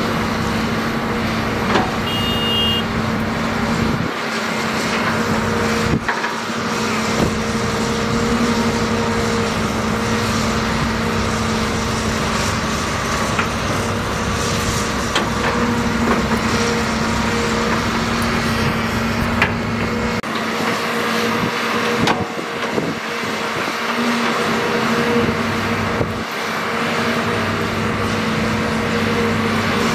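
Large Volvo crawler excavator's diesel engine running steadily under working load, with a constant hum, while it loads soil into a dump truck. A few short knocks of dirt and clods landing in the steel truck bed.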